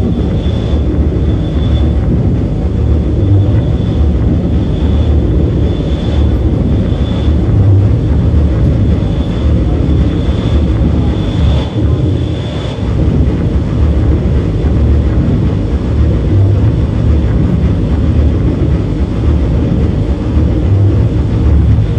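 Loud drone-based electronic music from a live laptop set: a dense low rumble under a noisy wash, with a faint high tone pulsing on and off through the first half.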